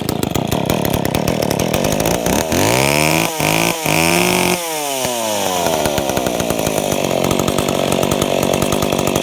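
McCulloch ProMac 10-10 two-stroke chainsaw engine firing up on a cold start with the choke off and high idle set. About two seconds in the revs climb and cut out briefly twice. They fall back around four and a half seconds in, and the engine then runs steadily.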